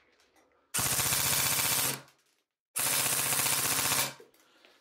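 CYMA Platinum SLR AK-105 airsoft electric rifle firing two full-auto bursts of about a second and a quarter each, a second apart, the gearbox cycling at just over 15 rounds a second on a 7.4 V battery.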